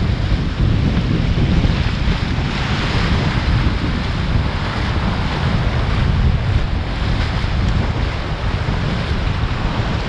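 Waves breaking and washing through the shallows, with strong wind buffeting the microphone in a steady low rumble.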